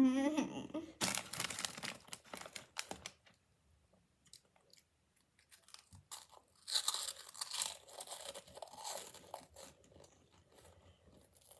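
Crunchy Flamin' Hot Monster Claws snacks being bitten and chewed close to the microphone, in two bouts of crackly crunching: one from about a second in, and a louder one around the middle. A brief vocal sound comes right at the start.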